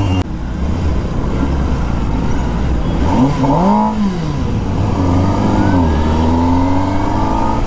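Kawasaki Ninja ZX-10R's inline-four engine pulling away from a stop: the revs rise and fall once about three seconds in, then climb steadily through the last few seconds as the bike gathers speed.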